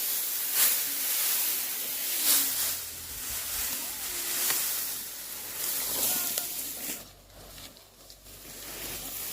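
Rustling and swishing of dry rice stalks being handled during the harvest, with two louder swishes in the first few seconds.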